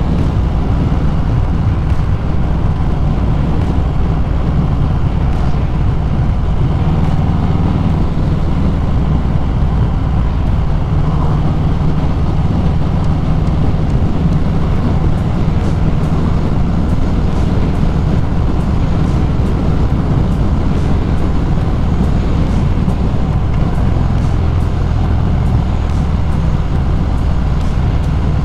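Harley-Davidson Sport Glide's Milwaukee-Eight 107 V-twin running at a steady cruise, heard from the rider's seat along with wind and road noise.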